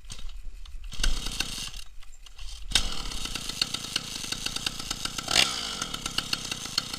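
Chinese two-stroke chainsaw engine on a home-built moped being started: a short burst about a second in, then it catches near three seconds in and runs steadily, with a brief rise in revs about five seconds in.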